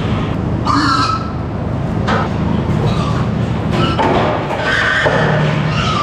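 Pigs squealing in short, repeated squeals, several in a few seconds, over a steady low hum, as they are driven through a sorting gate.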